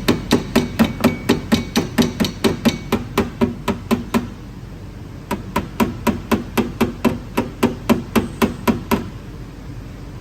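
Rapid, even hammer taps on a car's sheet-metal body panel, about four or five strikes a second, working down a high spot in the dent repair. The tapping pauses for about a second near the middle, then runs again and stops a second before the end.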